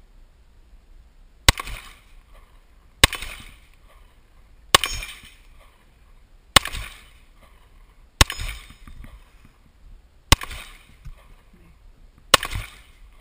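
Beretta M9 9 mm pistol fired seven times at a steady pace, about one shot every one and a half to two seconds, each crack followed by a short echo.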